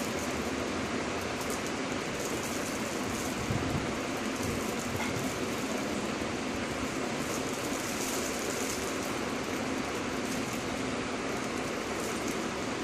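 Steady, even hiss of background noise, with faint light rustles and clicks now and then as a plastic surprise egg and a small toy car are handled.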